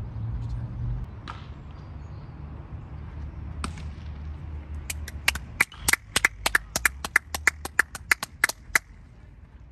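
Hands clapping close by, a quick run of about twenty claps lasting some four seconds that starts about halfway through, over a low steady rumble.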